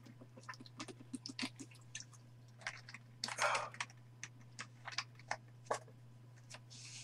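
Faint handling of trading card box packaging: scattered clicks and plastic crinkles, with a longer crinkle about three and a half seconds in, over a steady low electrical hum.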